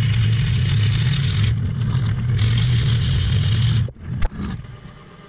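Wood lathe turning at 500 RPM while a 35 mm Forstner bit bores into the end grain of a wood-and-resin vase: a steady low hum under a loud, dense hiss of cutting. It cuts off suddenly about four seconds in, followed by a couple of brief knocks.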